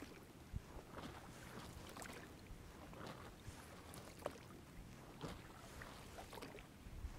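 Oars of a small rowboat being worked through duckweed-covered marsh water, giving faint splashes and knocks about once a second.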